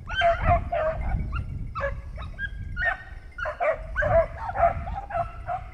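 Beagles baying and yelping in quick, repeated calls, with more than one hound giving voice at once, as they give tongue on a rabbit's scent trail.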